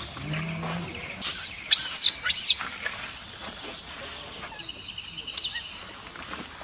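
Macaque monkeys squealing: several short, high-pitched squeals in quick succession from about one to two and a half seconds in, then fainter chirps.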